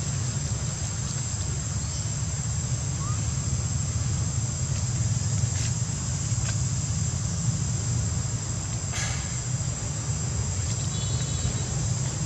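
Steady outdoor ambience: a constant high insect drone over a low rumble, with a few faint clicks and short chirps.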